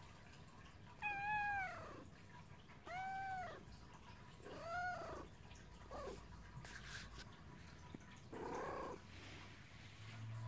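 Long-haired tabby cat meowing five times, a second or two apart, each call arching up then falling in pitch; the last one, near the end, is rougher. The cat is calling for a cuddle.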